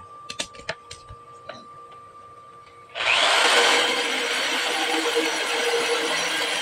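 A few light clicks of tools being handled. About three seconds in, an electric drill and a bench grinder start up with a short rising whine and then run steadily together, grinding down a metal bushing that is being sized to fit a starter motor.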